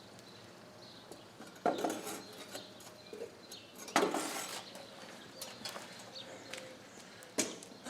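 Three sharp clanks of metal foundry gear being handled at the melting furnace, each followed by a short ring.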